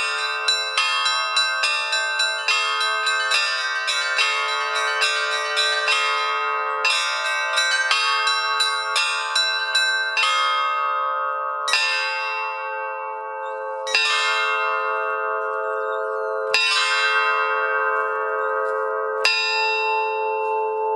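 Bells struck in quick succession, several strikes a second, then from about halfway slowing to five single strikes a few seconds apart, each left to ring on.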